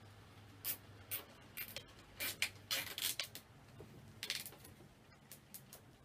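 Plastic cable tie being pulled tight through its ratchet head, heard as a run of short zipping clicks in uneven pulls over about four seconds.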